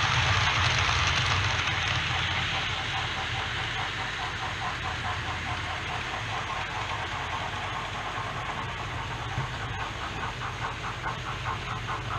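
OO gauge model steam locomotive's DCC sound decoder chuffing in a steady rhythm, with the model train rumbling over the track. A low hum fades over the first couple of seconds, and the chuffs stand out more clearly from about halfway through.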